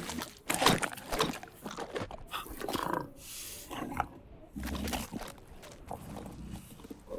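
Designed Pyroraptor dinosaur vocalizations, built from big-cat growls and bird calls. Several sharp calls and snarls come in the first three seconds, then a short hiss, then lower growls around the middle.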